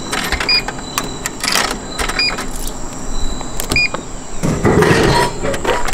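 Japanese drink vending machine: clicks of coins going in, with three short electronic beeps about a second and a half apart, then, after the selection button is pressed, the machine's mechanism runs and a bottle of milk tea drops into the tray with a clatter about four and a half seconds in. A steady high insect buzz runs underneath.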